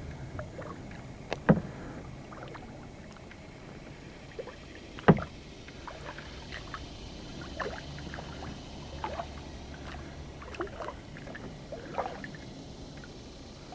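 Kayak on a slow creek: small water drips, splashes and ticks from the paddle and hull, with two sharp knocks, one about a second and a half in and a louder one about five seconds in.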